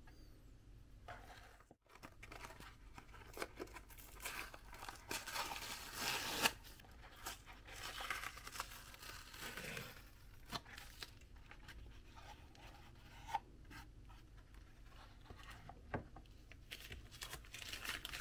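Cardboard and paper being worked by hand: uneven rustling, crinkling and tearing, with scattered sharp clicks and taps.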